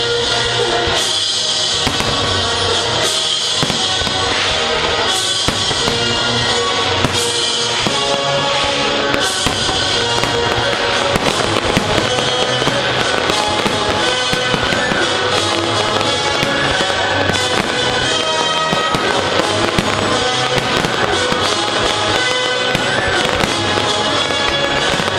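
Aerial firework shells bursting in quick succession, many sharp bangs one after another, with music playing throughout.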